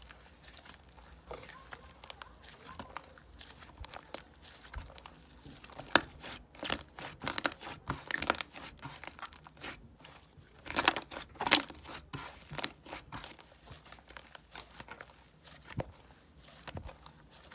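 Slime being squished and pulled by hand, giving irregular sticky crackles and tearing pops, with a louder run of crackles about eleven seconds in.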